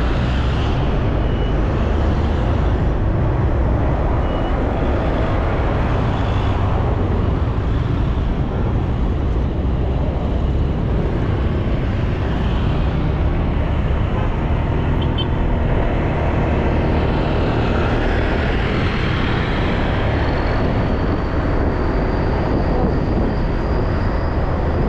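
Steady road and engine noise from a moving vehicle under way, with a heavy low rumble. Near the end a faint high whine rises slowly.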